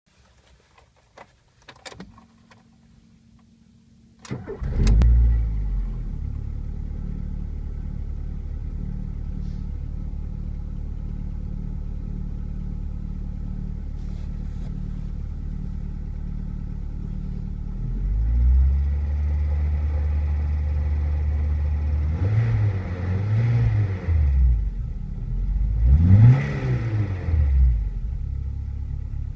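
Ford Orion being started: a few clicks and a brief steady hum, then the engine catches about four seconds in and settles into a steady idle. Near the end it is revved twice, each rev rising and falling. It is run to show an unidentified extraneous noise.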